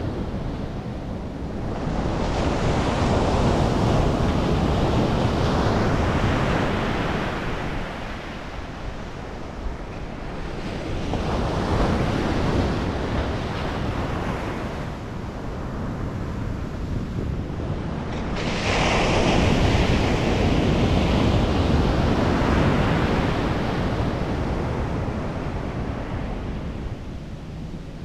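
Ocean surf breaking on a sandy beach, the noise swelling and easing in three long surges, the last coming in suddenly about two-thirds of the way through; wind buffets the microphone.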